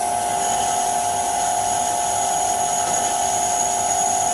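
Vintage Karger metal lathe running while a boring bar with a CCMT carbide insert takes a cut inside a metal spacer's bore: a steady mechanical whine with a thin high tone above it.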